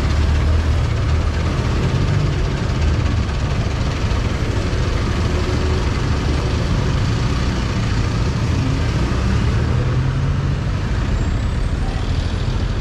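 Motorcycle riding through city traffic: a steady, even rumble of engine and road noise, heaviest in the low end.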